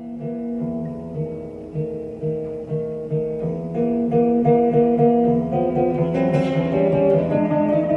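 Background music: acoustic guitar picking a slow, repeating pattern of chords.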